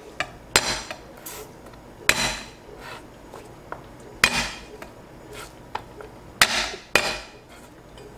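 Garlic cloves being smashed under the flat of a steel cleaver on a bamboo cutting board: about five sharp whacks a second or two apart, with lighter taps between.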